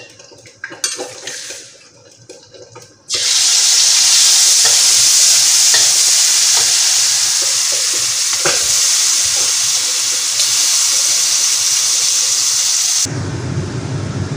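Metal spatula clicking and scraping in a wok with a little oil, then about three seconds in coarsely pounded chili paste hits the hot oil and sizzles loudly as it is stirred. Near the end the sizzle eases to a softer, lower frying sound.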